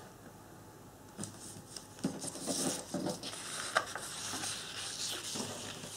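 A sheet of printed card rustling and sliding on a cutting mat as it is lifted and turned by hand, with a few light knocks and clicks; the loudest knock comes about two-thirds of the way through. It is quiet for about the first second.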